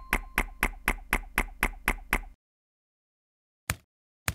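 Cartoon footstep sound effects: quick, even steps about four a second that stop a little over two seconds in. After a pause, two slower single steps come near the end.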